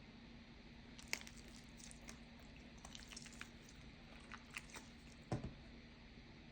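Slime being worked by hand: faint scattered clicks, crackles and small pops, with one louder knock a little after five seconds.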